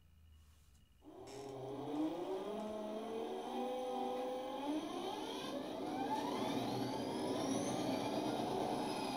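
Kato Sound Box playing a recorded MP36PH diesel locomotive sound through its speaker: about a second in the engine sound starts and revs up, with a whine that climbs steadily in pitch and grows louder.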